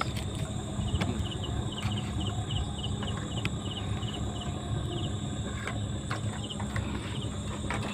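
Night insects calling: a steady high-pitched drone, with a cricket's short chirps repeating about three or four times a second for a few seconds, over a low rumble.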